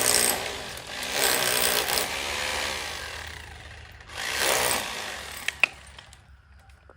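Handheld jackhammer chiselling into a wall in three short runs, the last one brief about four seconds in, then stopping; a single sharp knock follows.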